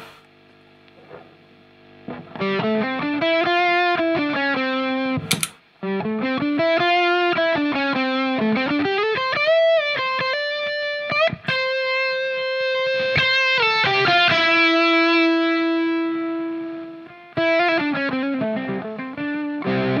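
Distorted electric guitar playing a lead line through effects pedals and a noise gate, with string bends, vibrato and long sustained notes. It opens with about two seconds of faint hum before the first notes, and there is a click and a short break about five seconds in.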